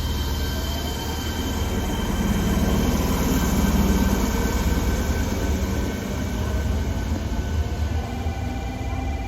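Fukuoka City Subway 1000N series electric train running with its jet-engine-like whine: several steady high tones over a loud rumble and wheel noise, swelling to a peak about three to four seconds in.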